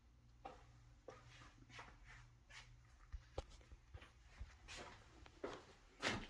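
Quiet room with faint, irregular footsteps and light rustling, over a low steady hum; a louder knock or rustle comes near the end.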